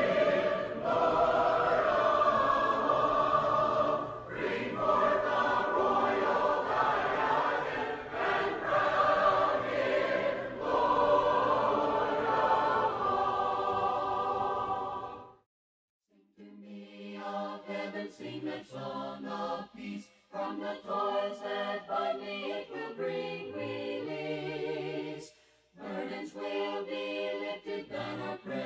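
Choir singing a hymn in harmony. The singing stops about halfway through, and after a short pause singing starts again, more sparse and broken up.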